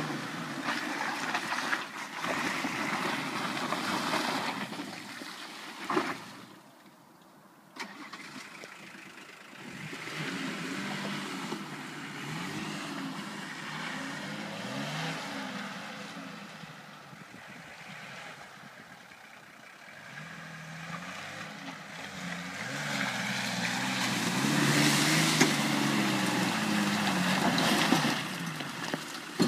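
Nissan Patrol's 2.8-litre six-cylinder diesel engine working under load off-road, its pitch rising and falling again and again as it is revved. The sound drops briefly about seven seconds in.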